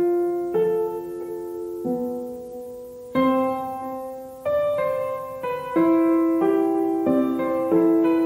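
Background piano music: slow, gentle notes and chords struck one after another, each left to ring and fade.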